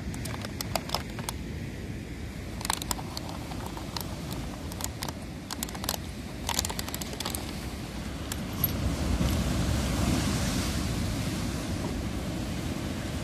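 Sea waves breaking on a pebble beach, a steady low rumble that swells louder about nine seconds in. Over the first seven seconds, sharp crackling clicks from a dog chewing a plastic bottle on the stones.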